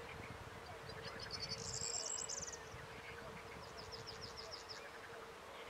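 Evening meadow ambience: a steady insect hum, with small birds singing high-pitched trills. A dense trill comes about a second and a half in and is the loudest part, followed by a quick run of about eight notes near four seconds.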